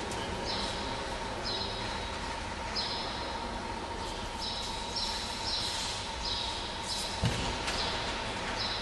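Steady hiss of a large sports hall with a faint constant hum, broken by a run of short high chirps, about a dozen, coming every half second to a second, and one low thump about seven seconds in.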